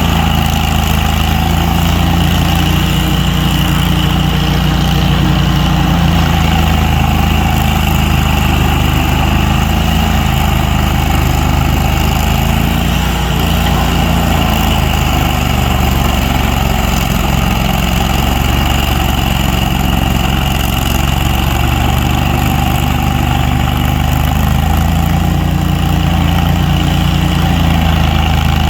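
A large engine running steadily at a constant speed, with a steady higher whine above its low drone.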